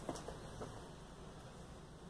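Quiet room tone: a low steady hum with a few faint clicks in the first second.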